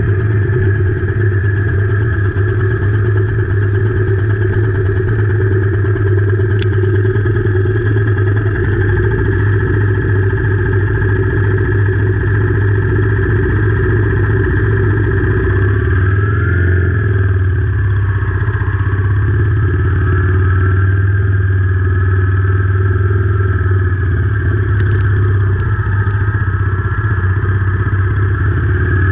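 Royal Enfield Meteor 350's single-cylinder engine running steadily as the motorcycle rides along. A little past the middle its pitch rises and falls briefly.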